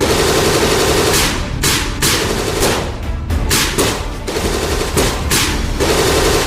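Rapid, continuous machine-gun fire sound effects over background music.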